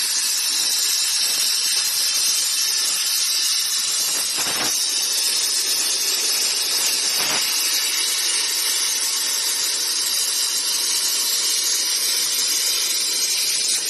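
Plasma torch on a CNC pipe cutting machine cutting steel with a steady high hiss.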